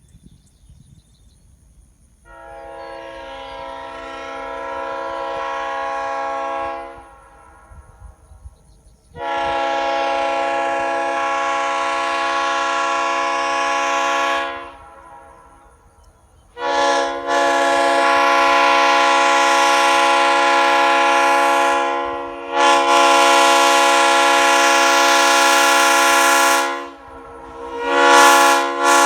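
Leslie S3L three-chime train horn with aluminum Tabby heads and original, never-remachined power chambers, blown on air in five long, loud chord blasts. The first swells up slowly. The next ones come at full strength, two of them running almost together, and the last starts just before the end.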